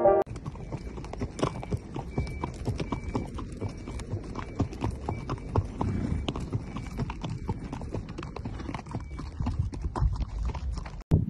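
Horses' hooves clip-clopping irregularly on a dirt track, heard from the saddle, with several horses moving together.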